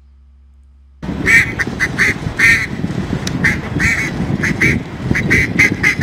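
AI-generated audio from the EzAudio text-to-audio model for the prompt "a duck quacks as waves crash gently on the shore": repeated duck quacks over a steady wash of waves. It starts about a second in.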